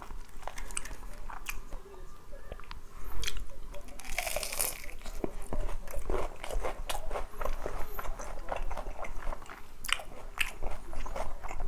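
Close-up crunching and chewing of crispy boneless fried chicken: a dense run of sharp crackling bites with chewing between them, loudest about four seconds in.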